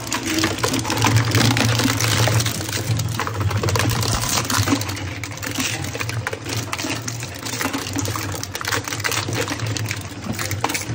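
Twin-shaft industrial scrap shredder running, its drive humming steadily while the cutter discs crunch through tubular scrap in a dense, irregular stream of cracks and snaps.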